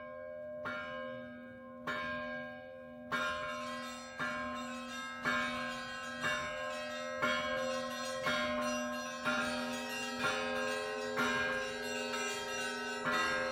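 Russian Orthodox church bells being rung, struck about once a second over the lingering hum of the larger bells, with more and higher bells joining in after about three seconds.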